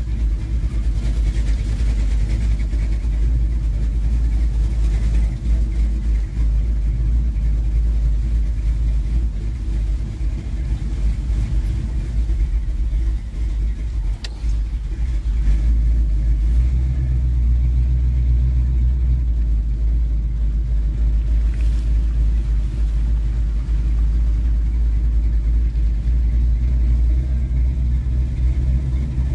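A car driving slowly: a steady low engine and road rumble, with the engine hum growing stronger for a few seconds a little past the middle.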